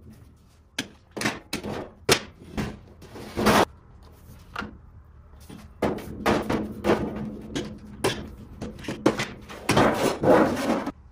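Thin sheet metal being bent by hand over a clamped board at the bench edge: an irregular run of knocks, pops and short wobbly rattles as the sheet flexes and is pressed down, busiest and loudest in the second half.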